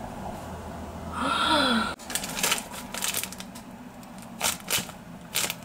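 A brief pitched sound about a second in, then a thin plastic snack bag being handled and crinkling in short irregular crackles.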